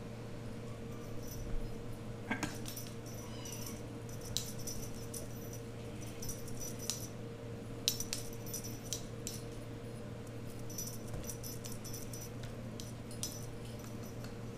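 Cat toys batted around by playing kittens on a hardwood floor: scattered light clicks and brief metallic jingles, over a steady low hum.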